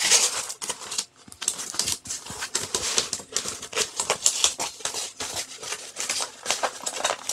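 Tight wrapping on a rolled diamond painting canvas crinkling and crackling as it is pulled and peeled off by hand: a dense run of small crackles, with a short pause about a second in.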